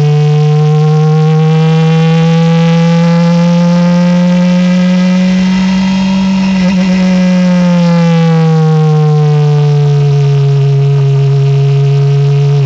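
Norma sports-prototype race car engine heard onboard, running steadily at high revs in third gear, its pitch rising slowly to about halfway and then easing back down.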